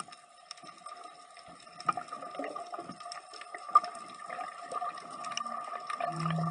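Muffled underwater sound heard through a camera's waterproof dive case: water moving around the case with scattered clicks and crackles over a steady hum. A sharp click sounds just under four seconds in, and a low steady drone comes in near the end.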